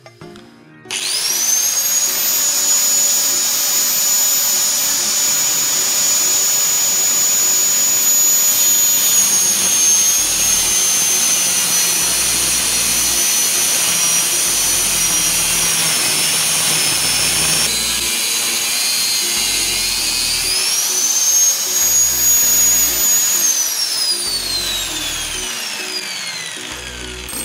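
Electric angle grinder in a cut-off stand spinning up with a rising whine about a second in, then cutting through a metal suspension conrod plate with a steady high whine and grinding hiss. The load eases and it revs up again, and near the end the motor is switched off and winds down with a long falling whine.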